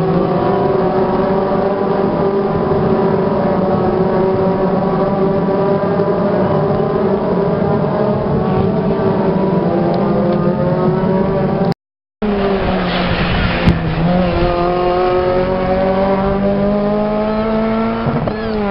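Race car engines running at speed as a pack of cars goes past, their pitch rising slowly under acceleration. A short dropout about two-thirds through, then engine sound continues, again rising slowly.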